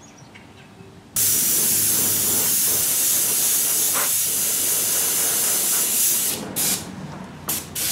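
Airbrush spraying yellow base-coat paint: a steady hiss of air starts suddenly about a second in and runs for about five seconds, then comes in short bursts near the end.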